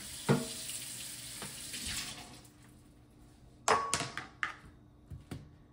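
Kitchen sink tap running for about two seconds while something is rinsed under it, with a sharp knock just as it starts. After the water stops come a few sharp knocks and clatters.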